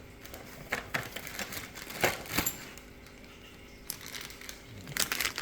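Handling noise of small lock parts being picked up and moved: scattered clicks and crinkling, with a sharper click about two seconds in and a busier cluster near the end.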